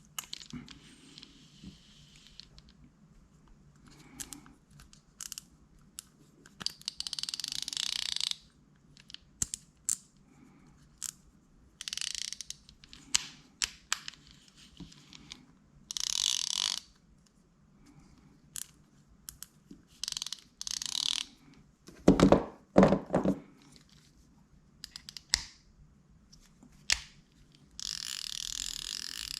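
Shimano baitcasting reels being worked by hand: repeated bursts of ratcheting clicks from the star drag clickers and the drag and handle mechanisms as the drags are tested, with a couple of heavier handling knocks in the middle.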